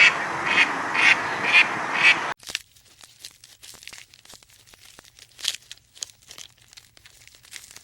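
Ducks quacking at about two calls a second over a steady dense background noise, which cuts off abruptly a little over two seconds in. Faint scattered clicks and crackles follow.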